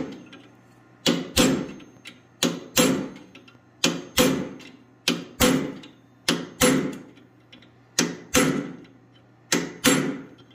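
Hand hammer striking a small ball punch into red-hot steel held in a vise, metal-on-metal blows with a short ring. The blows come in pairs, about seven pairs, one pair roughly every second and a half, dimpling the spot for the dragonfly's legs and pushing out its chest.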